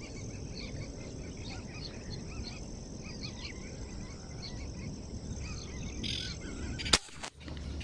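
Many small birds chirping and calling over a steady low rumble. A single sharp click comes near the end.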